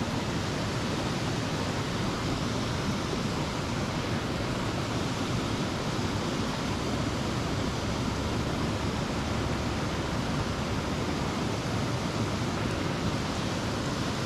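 Steady rushing background noise, even throughout, with no distinct knocks or clicks.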